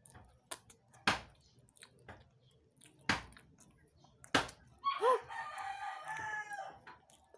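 A rooster crowing, one drawn-out crow of about two seconds starting about five seconds in. Before it come three sharp clicks, the loudest about a second in.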